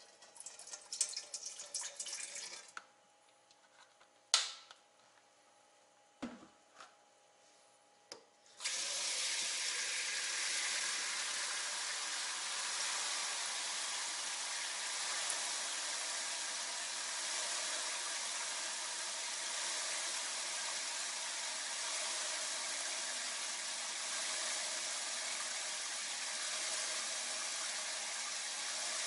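A liquid poured from a plastic bottle splashes into a stainless steel bowl for the first couple of seconds, followed by a click and a few light knocks. About eight seconds in, a kitchen tap comes on, and water runs steadily into the steel bowl in the sink.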